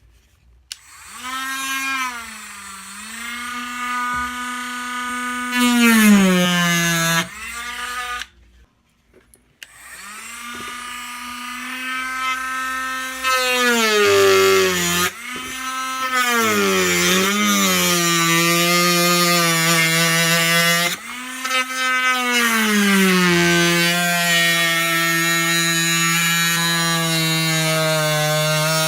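Electric power drill running in several long runs, a steady motor whine that spins up at each start, sags in pitch now and then under load, and winds down as the trigger is released. There is a short pause about eight seconds in.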